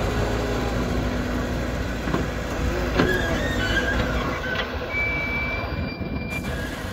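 Excavator running with a steady low engine rumble, with a few sharp metal knocks and high squeals as it works.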